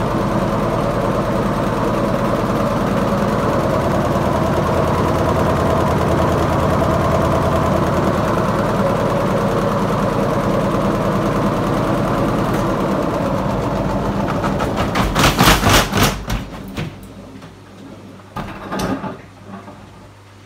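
Beko washing machine on a spin with an unbalanced load: the drum and motor run steadily with a fast rhythmic pulse, then about three-quarters of the way in a burst of loud knocking breaks out and the running drops away. A shorter burst of knocks follows near the end over a low hum.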